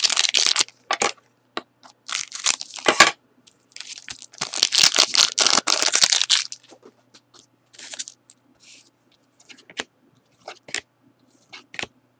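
Trading-card pack wrapper being torn open and crinkled in three loud crackling stretches over the first six seconds or so. After that come only brief, quieter rustles and clicks as the cards are handled.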